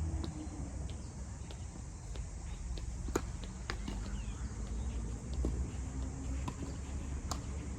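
Tennis balls knocking: a few short, sharp hits and bounces on the court, two louder ones about four seconds apart, over a steady low rumble.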